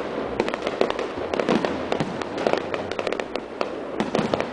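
Aerial firework shells bursting in a rapid barrage: many sharp bangs in quick, irregular succession.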